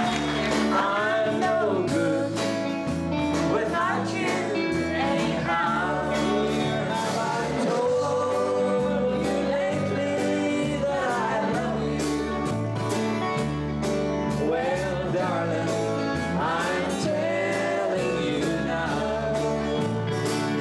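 Live band of drums, bass and electric guitar playing an upbeat song with a male and female duet singing into microphones.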